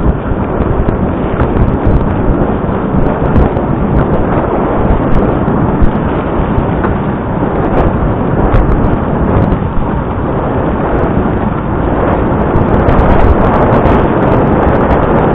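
Heavy wind buffeting the microphone: a loud, steady rumbling roar with gusty swells that grows a little louder near the end.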